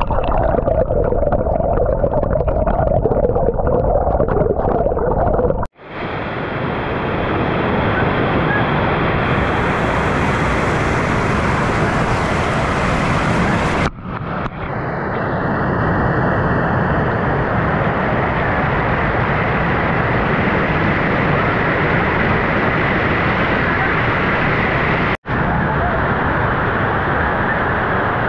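Water overflowing a dam and gushing down its stone steps in a loud, steady rush. For the first six seconds or so it is heard underwater, muffled and gurgling, before the camera comes up into the open rush.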